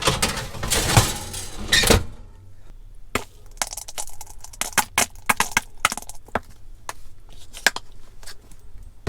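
Kitchen handling noise while food is served out: about two seconds of rustling, then a run of small sharp clicks, clinks and knocks.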